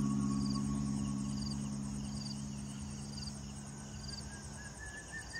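Insects chirping steadily in the riverside evening air: a constant high buzz with a short chirp about once a second. Under them, the held chord of the background music fades out about four and a half seconds in, and a warbling high trill starts near the end.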